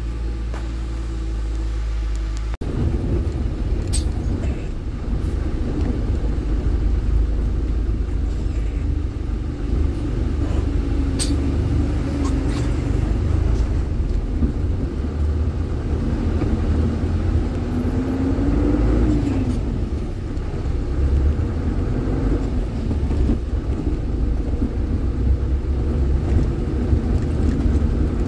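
A heavy vehicle's diesel engine running with a steady low rumble; its pitch rises and falls briefly about two-thirds of the way through, and a few sharp clanks break in.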